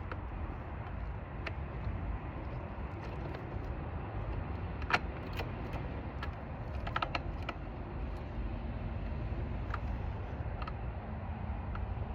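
Scattered small metal clicks and clinks of chainsaw parts being handled during reassembly of the bar and chain. The loudest click comes about five seconds in, with a quick run of clicks around seven seconds.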